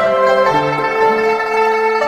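Background music played on plucked strings, a melody of held notes.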